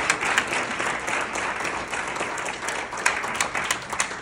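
An audience applauding, many people clapping at once.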